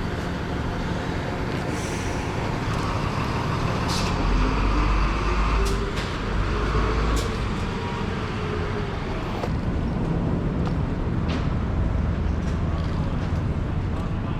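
Motor vehicle engine running steadily with road noise, a low rumble that swells between about four and seven seconds in along with a faint rising whine.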